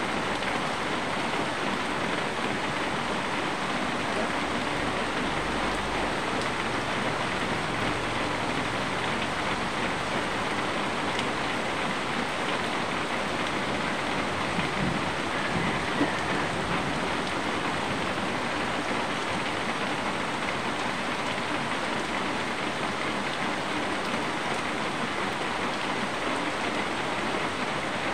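Steady rain falling outside, an even hiss without let-up.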